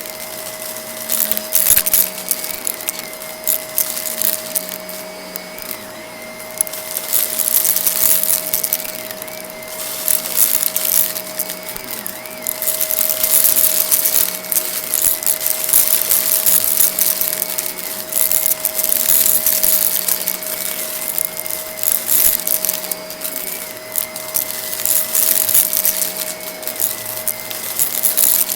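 Vacuum cleaner running with a steady whine while sucking up crunchy debris from a rug. The debris crackles and rattles through the machine in repeated bursts.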